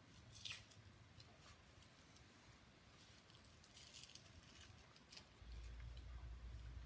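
Faint, soft wet squishing and peeling of fingers working the silver-skin membrane loose from a rack of raw baby back ribs, with a few small clicks. A low steady hum comes in about five seconds in.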